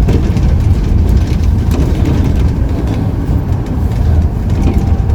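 Sightseeing bus running through city streets, heard from on board: a steady, loud low engine-and-road rumble.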